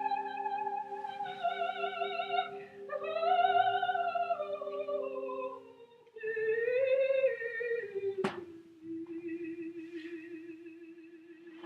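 A wavering melody with heavy vibrato over steady held low notes, which drop out about six seconds in; the melody then settles onto one long wavering note. A sharp click about eight seconds in.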